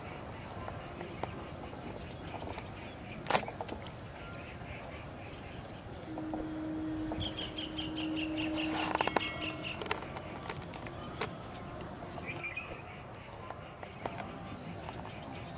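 Outdoor pond-side ambience with insects droning steadily throughout. About seven seconds in, a bird calls in a quick run of chirps over a low steady hum, and a few sharp clicks stand out.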